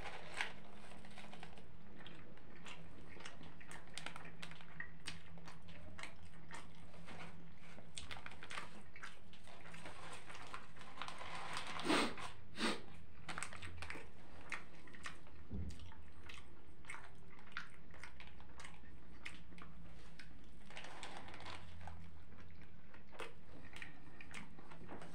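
A person biting into a shawarma and then chewing the mouthful, with many small wet mouth clicks and smacks. There is a burst of noise as the bite is taken, and two louder clicks about halfway through.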